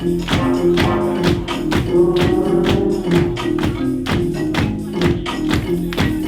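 Ballroom-style DJ dance track playing loud, with a dense run of sharp percussion hits over a repeating low bass line.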